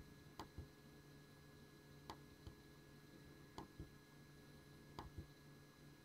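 Faint double ticks about every one and a half seconds, four pairs in all, over a low steady hum.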